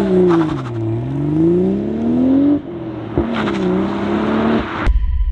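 Toyota GR Supra (A90) running through an HKS Super Turbo Muffler exhaust as the car accelerates away: the engine note dips, then climbs steadily, breaks briefly about two and a half seconds in, and climbs again. Near the end it cuts off to a low rumble.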